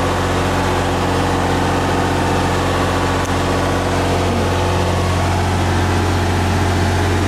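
Miller 400D welder-generator's diesel engine running steadily under load, carrying the house and a 4-ton air conditioner that has just started. It is a constant hum with a strong low tone.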